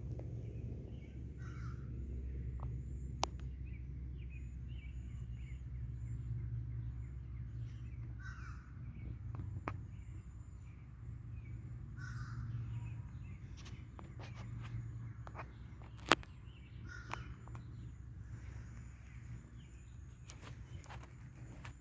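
Outdoor ambience: birds cawing now and then over a low steady rumble, with a few sharp clicks scattered through, one louder than the rest.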